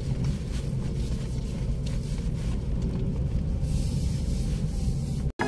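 A steady low rumble, like a vehicle running, that cuts off suddenly near the end.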